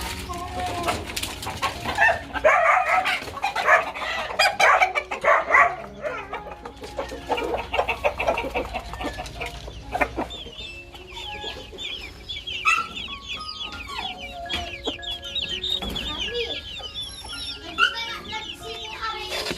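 Chickens clucking, with a rooster crowing, loudest in a run of calls a couple of seconds in. From about halfway, many rapid high chirps.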